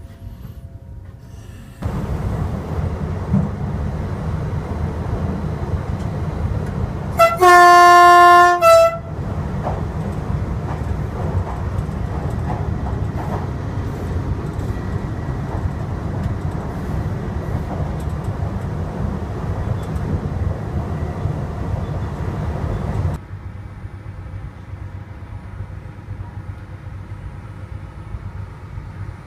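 A train horn sounds one loud, single-pitched blast about a second and a half long, heard from inside the driver's cab. Under it runs a steady low rumble of the cab while the train is running; the rumble cuts in about two seconds in and stops suddenly about six seconds before the end.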